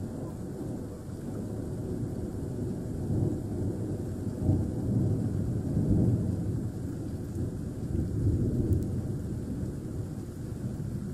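Rolling thunder: a low, continuous rumble that swells and fades several times.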